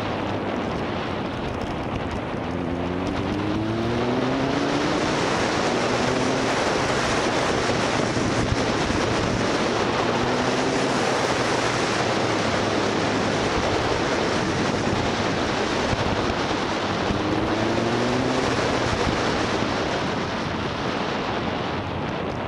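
Motorcycle ridden at speed, its engine note buried under heavy wind noise rushing over the camera's microphone. The engine tone rises a few times, about three seconds in, around ten seconds and near eighteen seconds, as the bike accelerates.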